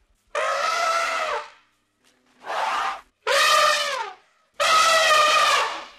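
Four drawn-out, pitched animal calls with gaps of silence between them, each lasting up to about a second, some dropping in pitch at the end.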